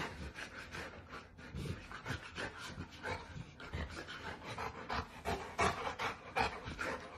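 A dog panting in quick, rhythmic breaths.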